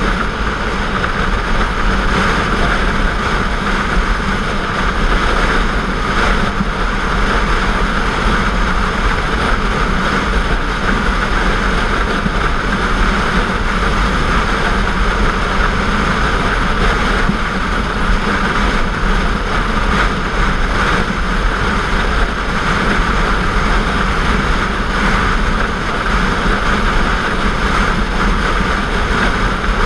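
Motorcycle riding at highway speed: a steady rush of wind and road noise on the camera's microphone, with the engine underneath, and no change throughout.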